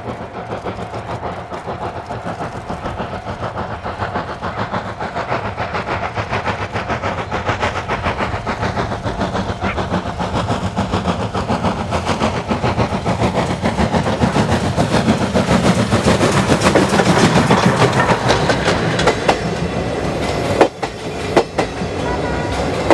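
C57 1 steam locomotive working a train with a rapid, even beat of exhaust chuffs, growing steadily louder as it draws near and falling back a little near the end.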